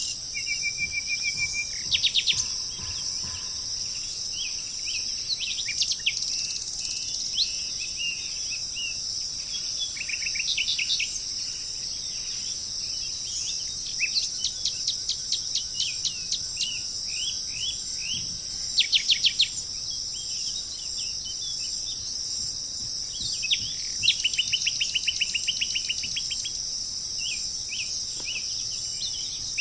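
Songbirds calling in short runs of rapid chirps and trills, over a steady high-pitched insect chorus.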